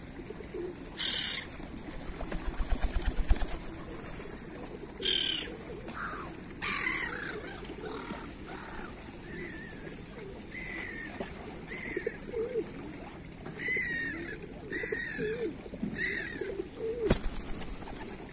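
Rock pigeon close to the microphone, cooing low at times, with a burst of rapid wing beats about two seconds in. A single sharp smack comes about a second before the end.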